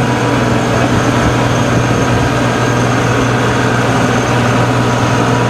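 Farm tractor engine running at a steady speed, a loud even drone.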